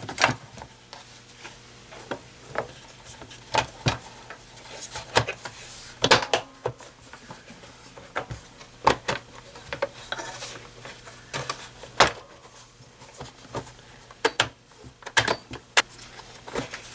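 Hard plastic housing halves of a Black & Decker BV4000 leaf blower being handled and pressed together: irregular clicks, knocks and rattles.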